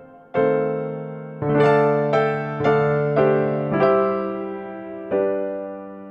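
Background piano music: notes and chords struck one after another, each ringing and slowly fading.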